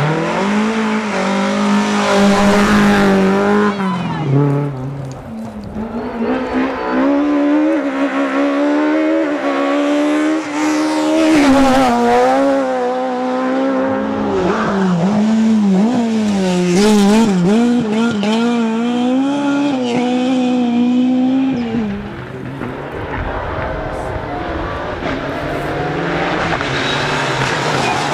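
Rally car engine revving hard and changing gear, its pitch rising and falling over and over as it drives the stage. It drops away about 22 seconds in, and another engine builds near the end.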